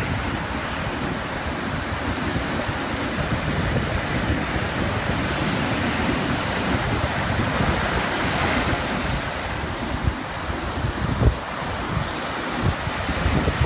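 Small ocean waves lapping on a beach, a steady wash with one wave washing in more strongly about two-thirds of the way through. Low wind buffeting on the microphone near the end.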